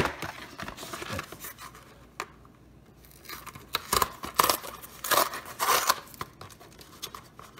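Cardboard carton of a frozen meal being ripped open along its tear strip: a sharp click at the start, then several bursts of tearing paperboard between about three and seven seconds in. The strip tears only partway across.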